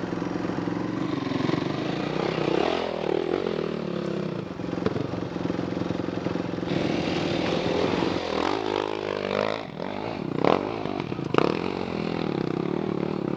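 Dirt bike engine running and revving, its pitch rising and falling, with two sharp knocks near the end.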